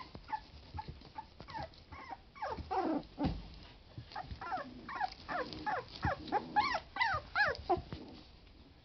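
Very young Boston terrier–Labrador mix puppies play-fighting: a run of short squeaky yips and whines, each falling in pitch, with little puppy growls. The calls come thick and fast in the second half, then stop shortly before the end.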